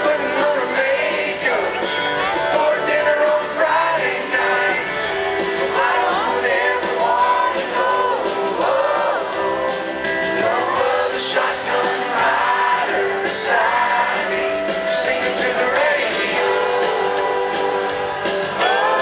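Live country band playing: a male lead vocal sings over electric and acoustic guitars and drums.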